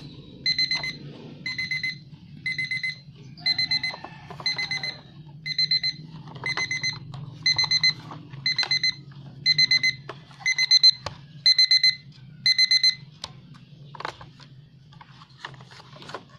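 Electronic alarm of a small Disney Ariel alarm clock beeping in quick pulsed bursts at a steady high pitch, about one burst a second, stopping about 13 seconds in. After that come a few sharp plastic clicks as the folding clock is handled.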